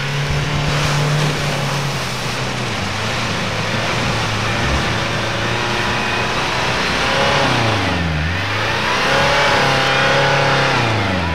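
Jeep Cherokee's engine working under load as it pushes through deep mud. The revs hold steady, then drop and pick up again about eight seconds in and once more near the end.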